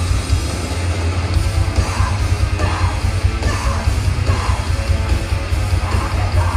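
Loud, aggressive heavy band music: distorted electric guitars over a heavy bass, with shouted vocals coming in again and again.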